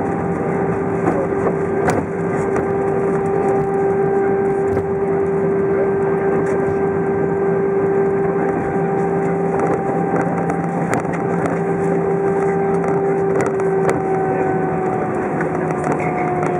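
Cabin noise of an Airbus A320 on its landing rollout with the ground spoilers up: a steady, loud roar of engines and rushing air with a constant hum that drops slightly in pitch near the end as the aircraft slows. A few light knocks come through.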